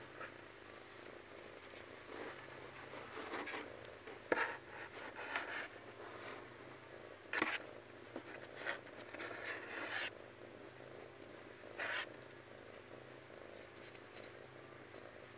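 Kittens' claws scrabbling on the cardboard floor of a box: a series of short, scratchy scrapes between about 2 and 12 seconds in, over a faint steady low hum.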